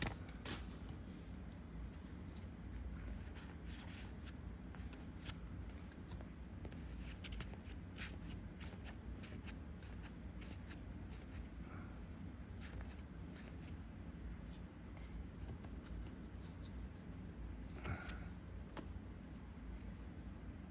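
Faint, scattered ticks and rustles of Star Wars Unlimited trading cards being handled and flipped through one by one, over a low steady hum.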